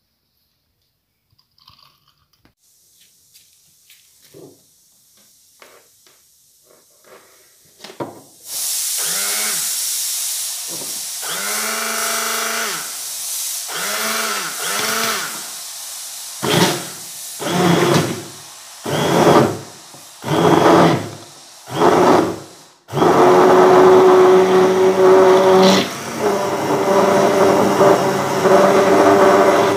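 Electric hand blender churning banana and milk in a glass. After a few faint taps, its motor runs in a string of pulses, spinning up and down with each, then in about seven short bursts, and finally runs steadily for the last several seconds.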